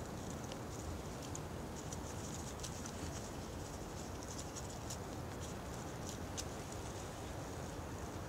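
Quiet woodland ambience: a steady low hiss with scattered faint ticks and patters at irregular intervals.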